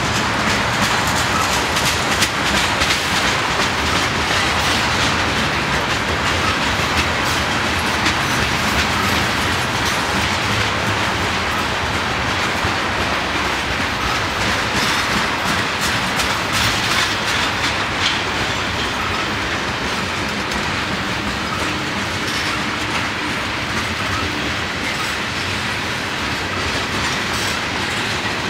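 Freight train tank cars rolling past: a steady noise of steel wheels on the rails, with repeated clicks as the wheels cross rail joints.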